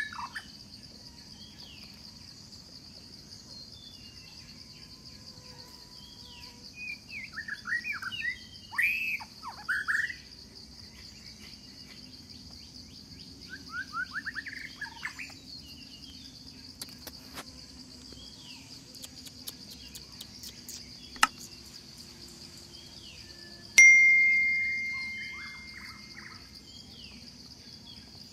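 Outdoor forest ambience: a steady high insect drone throughout, with clusters of short chirping calls a few times in the first half. A single sharp click comes later, then a loud ringing tone that fades away over about two seconds.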